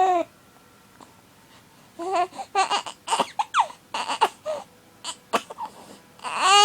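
Six-week-old baby fussing in short, broken cries, then starting a loud, long wail near the end; the crying of an infant upset by his hiccups.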